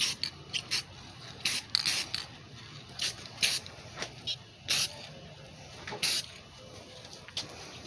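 Aerosol can of clear coat sprayed in a dozen or so short, irregular hissing bursts.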